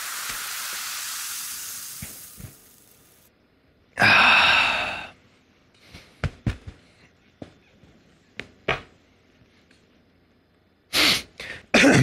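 A hiss fades out over the first three seconds. About four seconds in comes a long, loud sigh. Then come scattered light clicks and knocks as a man settles into an office chair and swings his feet up onto a table, and two short noisy bursts near the end.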